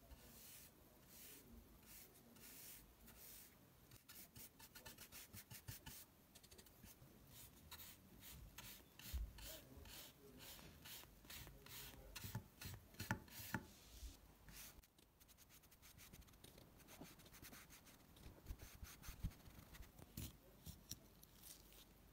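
Bristle paintbrush stroking wet walnut wood stain onto a bare wooden board: faint, repeated rubbing brush strokes, loudest around the middle.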